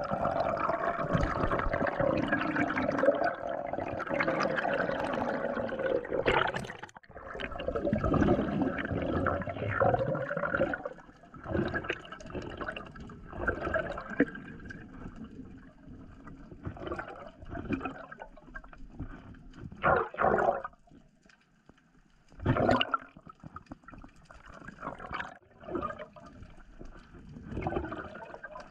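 Water rushing and gurgling past a GoPro camera in its underwater housing, muffled: steady and loud for about the first six seconds, then coming in short surges with quieter gaps between.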